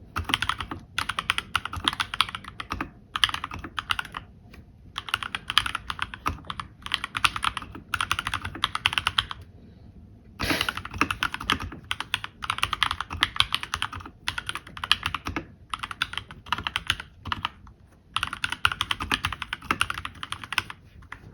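Fast typing on a Keychron K2 mechanical keyboard: rapid runs of key clacks in bursts of a second or two, broken by short pauses, with one louder single clack about halfway through.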